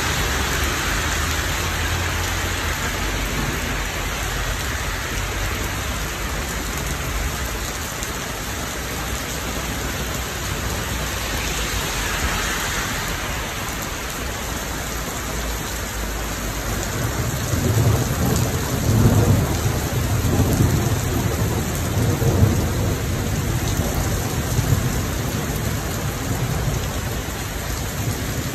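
Heavy rain pouring steadily in a thunderstorm. About two-thirds of the way in, a long, uneven roll of thunder rumbles low beneath the rain for several seconds before fading.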